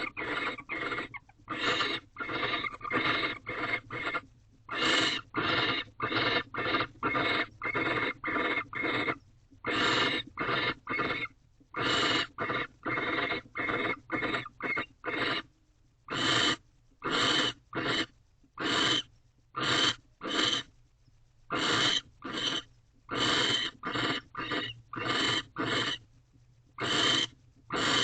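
Barn owl giving a long series of short rasping hisses, the snoring call, about two a second in runs with brief pauses.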